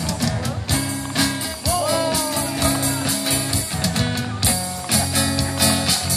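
Rock music with guitar and a steady drumbeat playing loud and continuously.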